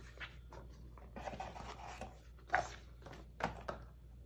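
Cardboard board-game components being handled and taken out of their box: rustling and rubbing with a few sharp taps, the loudest about two and a half seconds in.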